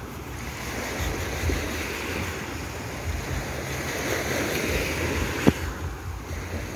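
Surf washing onto a sandy beach, with wind buffeting the microphone in gusts. A single sharp click about five and a half seconds in.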